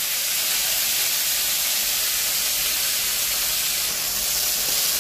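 Boiled, drained leafy greens just added to hot oil in a kadai, sizzling with a loud, steady hiss as the water on the leaves turns to steam.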